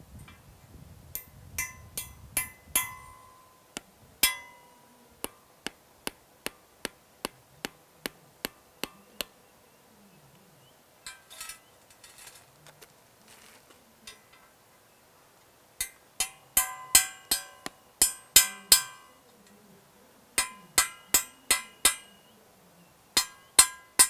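Club hammer striking steel nails through the corners of a steel density plate into hard soil, fixing the plate down for a sand-replacement density test. The strikes come as short runs of sharp ringing metallic blows with pauses between them, including a stretch of lighter, evenly spaced taps about two a second early on and the densest, loudest run in the second half.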